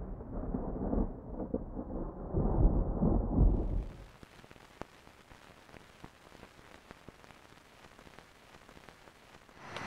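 A deep, rolling rumble like thunder for the first four seconds. It then drops to a faint hiss with scattered clicks and pops, an old-film crackle effect.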